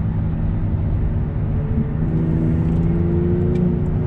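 Engine drone and road noise inside the cabin of a straight-piped BMW 760Li V12 at speed. From about two seconds in a stronger, steady engine note joins as a Ferrari 488 Pista's V8 comes alongside.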